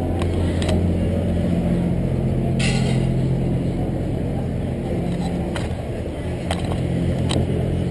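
Steady low drone of a river passenger boat's engine, with a few sharp clicks and knocks and a brief hiss about two and a half seconds in.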